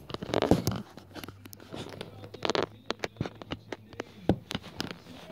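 Handling noise from a phone camera being moved about close to a tabletop: an irregular run of sharp taps and knocks with short scrapes between them.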